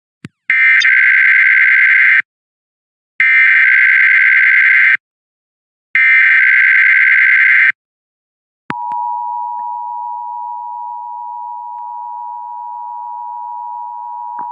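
Emergency Alert System SAME header: three short bursts of screeching digital data tones, each lasting almost two seconds with brief gaps between them. About nine seconds in, the steady two-tone EAS attention signal (853 and 960 Hz) begins. Together they open a coordinated monthly test broadcast.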